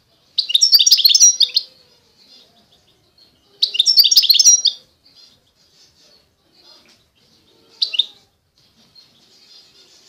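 A small finch singing: two bursts of rapid, high twittering about a second long each, then a single short chirp, with faint twitters in between.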